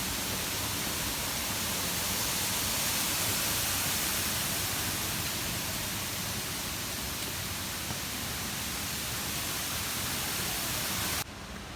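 Waterfall rushing with a steady hiss of falling water, cutting off abruptly near the end.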